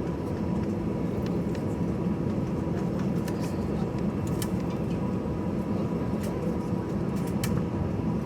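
Cabin noise inside an Airbus A320-214 taxiing: the steady low rumble of its CFM56 engines at taxi power and the cabin air, with a faint steady tone and a few light clicks.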